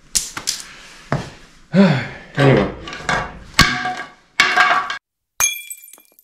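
Clattering knocks and bangs as a paddle falls and hits things in the shop, followed about five seconds in by a single sharp crash with a ringing tail.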